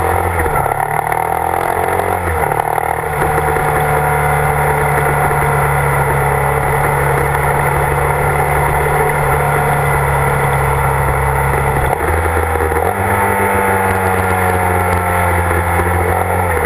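Motorcycle engine running at road speed with wind noise on the microphone. The engine note steps to a new pitch a few times, about half a second in, around three seconds in, and again near twelve and thirteen seconds.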